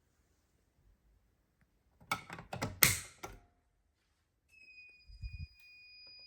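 A quick cluster of clicks and knocks about two seconds in, the loudest near three seconds. A faint steady high-pitched tone then begins about four and a half seconds in, with a few low thumps just after it starts.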